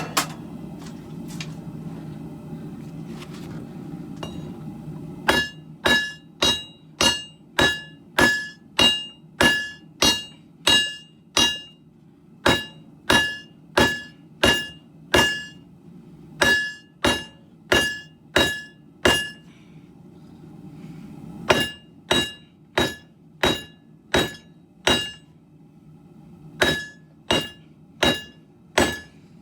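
Hammer blows on an anvil while forging a leaf-spring steel sword blade, about two strikes a second, each with a bright metallic ring. The strikes come in three runs, the first and longest starting about five seconds in, with short pauses between them.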